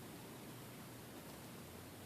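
Faint room tone: a steady hiss with a low hum and no distinct sounds.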